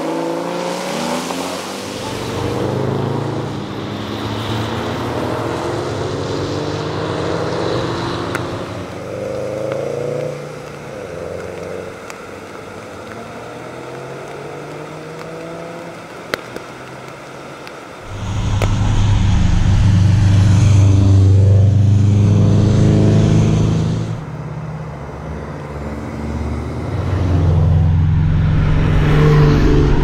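Porsche Cayman GT4's flat-six engine revving up and falling back through the gears, with loud passes, the loudest about two-thirds of the way in. Tyres hiss on the wet road underneath.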